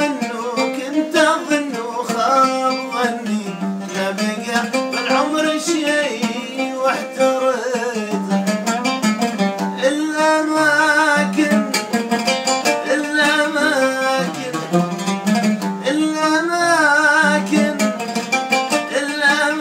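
An oud played with plucked and strummed notes, accompanying a man singing with a wavering, ornamented melody.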